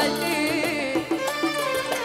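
Arabic folk-style music: a melody with wavering, ornamented pitch over steady instrumental accompaniment.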